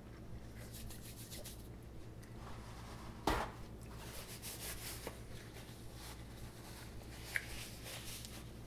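Faint rubbing and rustling of hands being wiped on a paper napkin, with one short knock about three seconds in, over a low steady hum.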